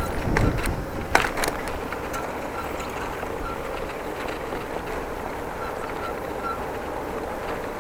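Bicycle back wheel squealing while riding: short, high chirps about two or three times a second, evenly spaced as if once per wheel turn, over tyre and wind noise. This is the sign of a fault in the rear wheel that the rider has not yet traced. A few sharp clicks come about a second in.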